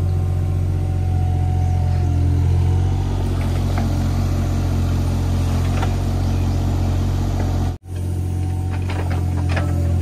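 Hitachi ZAXIS 20U mini excavator's diesel engine running steadily under digging load, a strong low hum, with a few faint knocks of the bucket working the soil. The sound cuts out for a moment about eight seconds in, then carries on.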